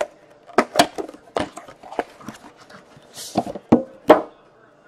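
Hockey card box and packs being opened and handled on a table: about ten sharp taps and knocks, with a short rustle of packaging about three seconds in.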